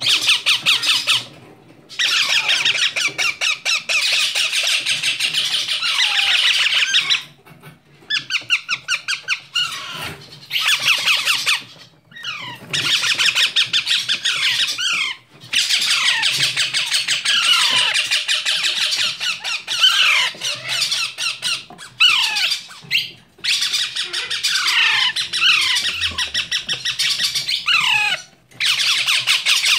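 A group of Alexandrine and rose-ringed parakeet chicks giving rapid, raspy begging calls in a steady chorus. The calling stops briefly several times, with short falling squeaky chirps in between.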